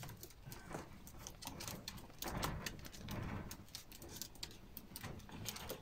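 Prague Ratter puppies eating dry kibble from a bowl: an irregular run of small crunches and clicks, busiest midway.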